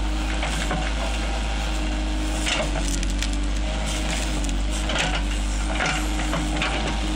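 JCB backhoe's diesel engine running steadily while its bucket tears into a shrub, the roots and branches cracking and snapping several times, sharpest about two and a half, five and six seconds in.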